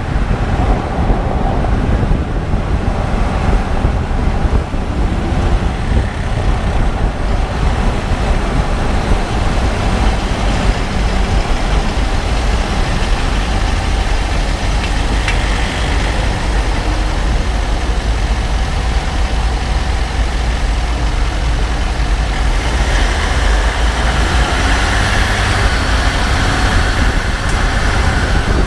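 2014 Range Rover Sport SDV8, its 4.4-litre V8 diesel, running with a steady low rumble, recorded at low speed to catch a clicking that the owner cannot identify.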